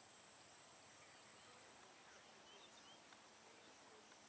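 Near silence: faint outdoor ambience with a steady high-pitched insect drone and a few faint bird chirps.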